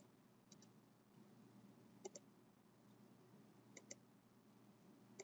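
Faint computer mouse clicks in quick pairs, four times about a second and a half apart, over near-silent room tone.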